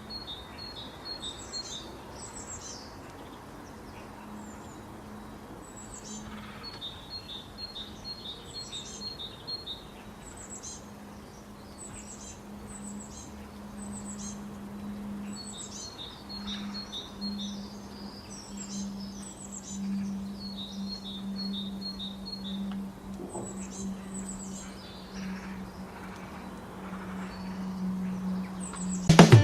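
Common linnet singing: phrases of rapid twittering chirps and short repeated trills, coming in bursts with brief pauses between them, over a steady low hum.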